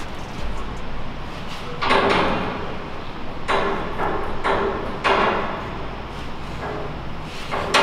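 A long leaning pole scraping and knocking as a person climbs it, with about five separate sliding scrapes, each under a second.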